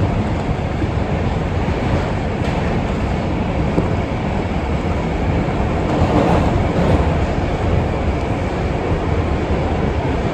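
R142 subway train running along the track: steady wheel-on-rail and running noise, swelling slightly a little past halfway.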